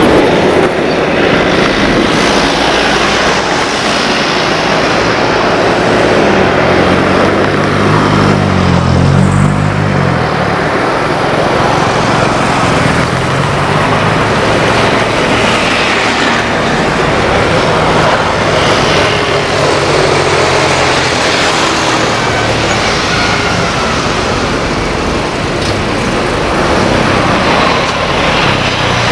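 Airbus A320-214 airliner with CFM56 engines landing: a steady rush of jet engine noise as it comes in on approach, touches down and rolls out along the runway. A low wavering drone comes in for a few seconds about a third of the way through.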